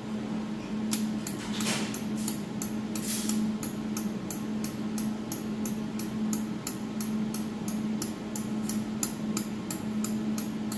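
Adjustment knob on a jewelry laser welding machine being turned, clicking steadily about three times a second, over the machine's steady hum.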